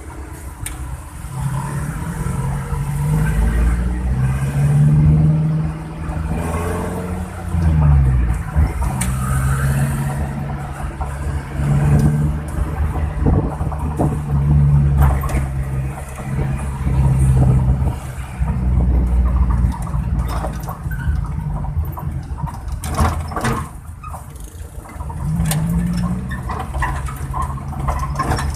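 Suzuki Carry's engine running with a deep, snoring, bus-like exhaust note. Its pitch repeatedly climbs and drops back every few seconds, as with revving and gear changes.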